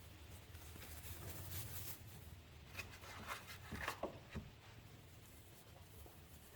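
Faint rustling and small handling clicks of work gloves being pulled onto the hands, strongest between about one and four and a half seconds in, over a low steady hum.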